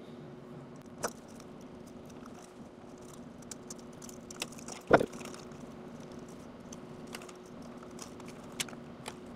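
Small clicks and light rattles of hands handling thin wires and a clear plastic dome, with one sharper tap about five seconds in, over a faint steady hum.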